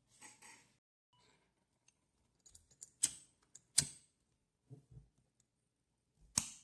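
Small clicks and taps of a Dunhill Rollagas lighter's metal parts being handled, with three sharp clicks standing out, about three, four and six and a half seconds in.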